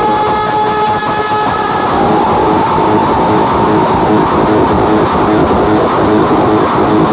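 Very loud music blasting from large outdoor sound-system speakers, heavily distorted and smeared. Held tones stop about a second and a half in, and a fast repeating electronic figure starts soon after.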